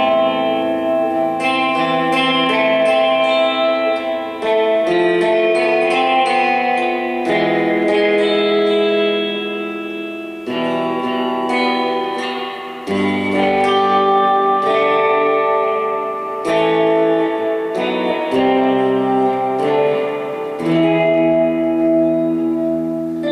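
Electric guitar played with a clean tone through a Gomez El Sonido 50-watt Bassman-clone tube amp: a run of single-note melodic phrases and chords, with brief pauses between phrases.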